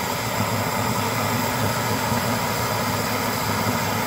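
A 1920s brass Primus kerosene pressure stove burning, its burner giving a steady roar at an even level.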